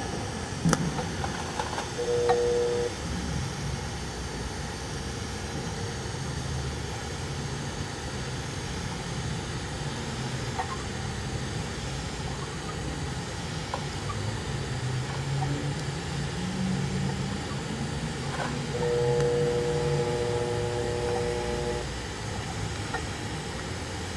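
TIG arc welding a 6-inch schedule 40 pipe at 145 amps, the cup walked along the joint: a steady hiss with a low hum. Twice, about two seconds in and again near the end, a higher steady tone joins in for a few seconds.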